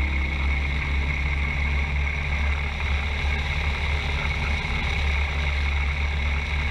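2009 Harley-Davidson Electra Glide's V-twin engine running at a steady cruising speed: a low, even rumble under a constant rush of wind and road noise.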